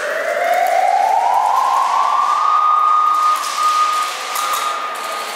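Siren-like wail: a noisy tone rises in pitch over about two seconds, then holds steady and fades near the end.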